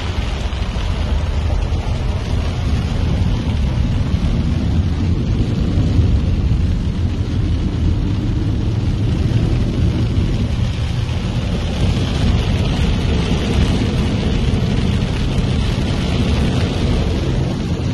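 Heavy rain beating on a car and floodwater spraying up from its wheels as it drives through a flooded street, heard from inside the cabin as a steady, loud rushing with a deep rumble.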